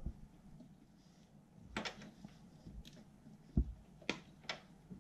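A handful of short, sharp clicks and light knocks from a small plastic fan-cable connector and its wires being handled and pushed onto a motherboard fan header.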